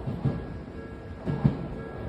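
Level crossing warning bell ringing in a steady tone as an Odakyu Line train finishes passing, its wheels thumping over the rail joints a couple of times.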